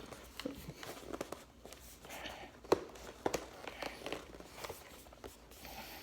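Handling noise from a knife box being turned over and worked at to open it: scattered light taps and clicks, with one sharper click a little before halfway.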